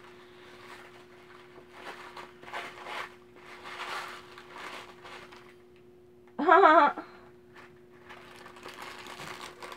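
Wrapping paper rustling and crinkling in several soft bursts as a small wrapped item is unwrapped by hand. A short, wavering hummed note from a woman, louder than the rustling, comes a little past the middle. A faint steady low hum runs underneath.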